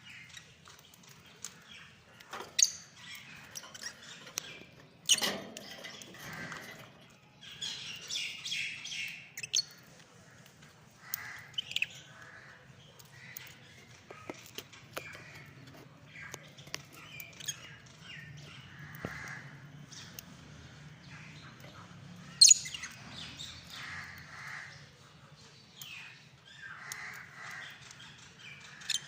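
Lovebirds chirping and squawking in scattered short calls, with a run of rapid chattering about eight seconds in and a few sharp loud squawks. A faint steady low hum runs underneath.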